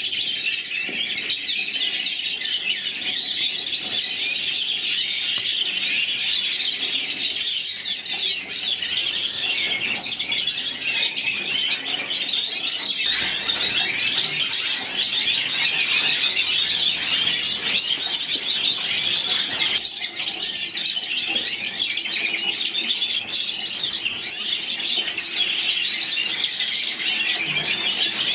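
Domestic white canaries singing: a continuous, dense stream of rapid trills and twittering.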